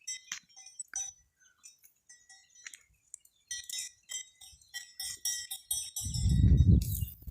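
Livestock bells clinking irregularly, with high chirping calls of farm-country animals above them. A low rumbling noise comes in about six seconds in and is the loudest thing near the end.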